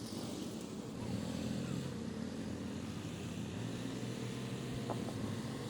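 An engine running steadily at an even speed, a low drone with a faint click or two, typical of machinery on a pipe-laying site.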